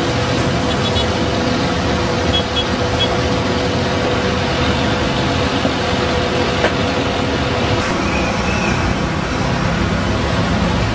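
Steady city road traffic noise, with the engines of passing buses and heavy vehicles running.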